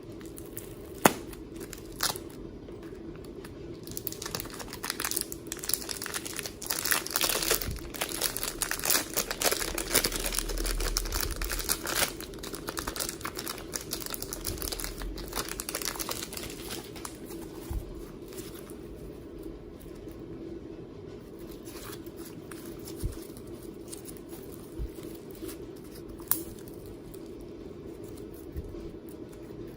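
Slime being squished and stretched by hand, a dense run of small crackles and crinkling pops that thins out in the second half, with a few sharper single clicks and a steady low hum underneath.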